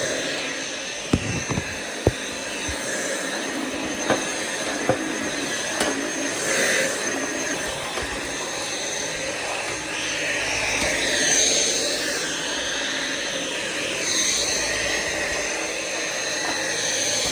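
Dyson V7 cordless stick vacuum running with a steady high whine and rushing air, with a handful of sharp clicks in the first half.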